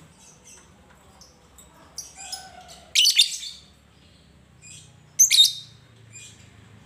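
Lovebird giving short, high-pitched chirps, with two louder bursts of shrill calls about three and five seconds in.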